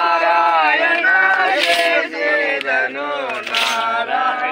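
Group of men singing a Telugu devotional bhajan together in long held lines, with a sharp percussive stroke twice, about two seconds apart.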